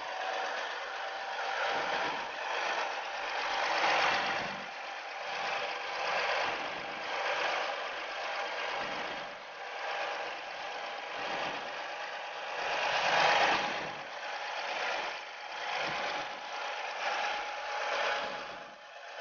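Volvo D7D inline-six diesel engine, a Deutz 1013 derivative, running steadily on a stand during its break-in, a continuous diesel clatter with a faint steady whine.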